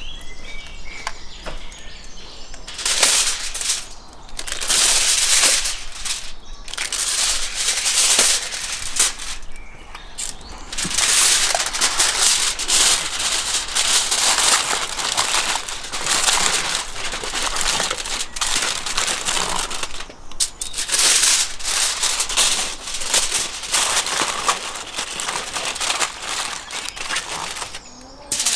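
Aluminium foil crinkling and rustling in irregular bursts as it is spread and pressed down over a baking tray.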